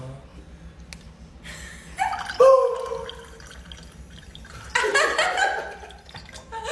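Tap water running from a faucet and splashing into a glass already full of water, starting about a second and a half in. People exclaim once about two seconds in and shriek and laugh near the end.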